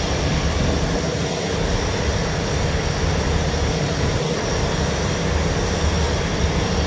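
Steady, loud drone of running machinery with a constant low hum and no breaks.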